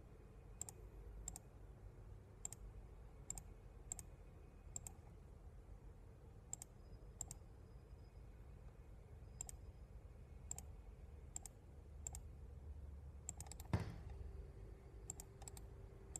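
Computer mouse clicking at an unhurried pace, a short sharp click about once a second, over a faint steady room hum, with one louder knock near the end.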